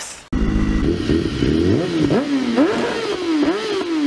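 Motorcycle engine accelerating hard through the gears. It starts suddenly a moment in, and its pitch climbs and drops at each of several upshifts.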